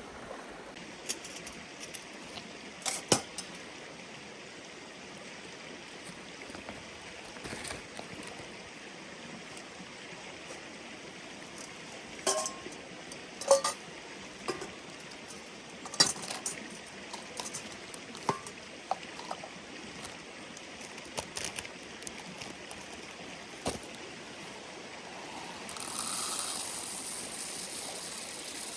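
A river flowing steadily, with scattered clinks and knocks of small hard objects being handled. A rushing noise rises near the end.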